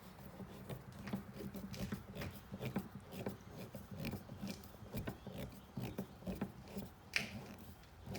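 Hand tools working a screw into a plastic door pull on a car door panel: a run of small irregular clicks and scrapes, with a sharper click about seven seconds in.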